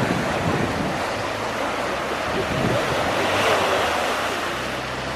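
Ocean surf breaking and washing on the shore: a steady rush of water, with a larger wash about three and a half seconds in.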